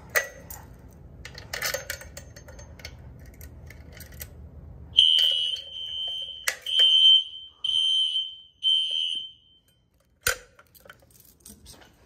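A few small clicks from the fire alarm pull station being worked. About five seconds in, a fire alarm starts sounding a loud, steady high tone: one long blast, then shorter pulses, stopping after about four seconds. A sharp snap follows about a second later.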